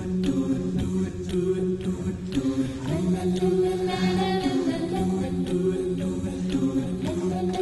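Music: voices singing held, chant-like harmonies over a regular clicking beat.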